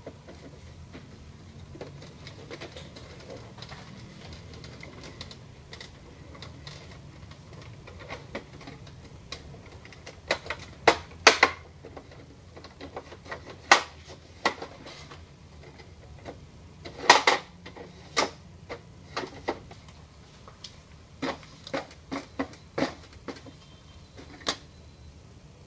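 Irregular plastic clicks and knocks from an Epson L210 inkjet printer's rear paper-feed support and casing being handled and snapped into place. They start about ten seconds in, and the loudest cluster comes a few seconds later.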